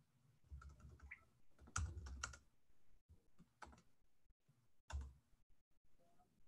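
Faint keystrokes on a computer keyboard: a quick run of key presses about two seconds in, then a few single taps.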